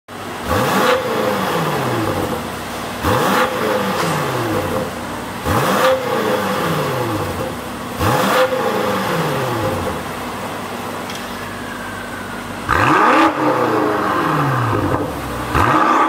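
BMW X5M Competition's twin-turbo V8, fitted with a Fi Exhaust valvetronic exhaust, idling and blipped six times, each rev rising quickly and falling back to idle. The first four revs are made with the exhaust valves closed; from about two-thirds of the way through, the idle and revs are louder, with the valves open.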